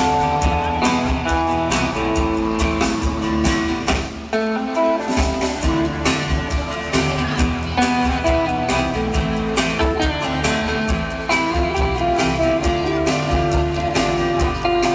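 Live guitar-led instrumental rock band: an electric guitar holds out the melody over a strummed acoustic guitar, electric bass and drums. About four seconds in, the bass and drums drop out for roughly a second, then come back in.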